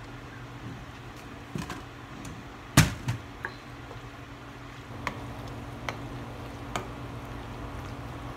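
Wooden spoon stirring ground meat and vegetables in a stainless steel skillet, knocking against the pan several times, loudest about three seconds in. A steady low hum runs underneath.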